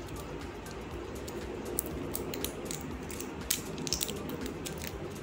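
Clear plastic shrink-wrap seal crinkling and crackling as fingers pick at it and peel it off a jar's lid, in irregular small clicks.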